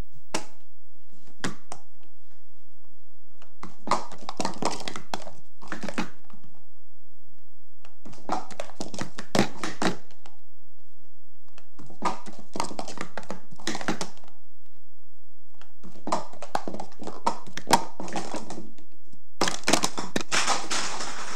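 Plastic sport-stacking cups clattering on a table as a 3-6-3 is stacked up and down: quick runs of rapid clicks about two seconds long, repeated five times with short pauses between.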